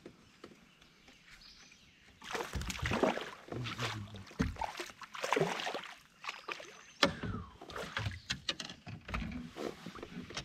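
Water splashing and sloshing as a hooked bass is fought up beside a kayak, in loud noisy surges for a few seconds. This is followed by a run of sharp knocks and clicks, fishing gear and the landing net handled against the plastic hull.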